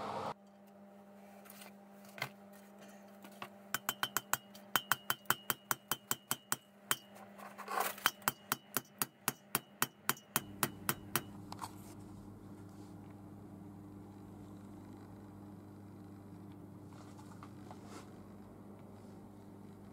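A hammer drives a chilled valve guide into a heated cast-iron BSA B31 cylinder head, the shrink-fit of new guides. There are a few single taps, then two runs of sharp, ringing metallic strikes at about four a second.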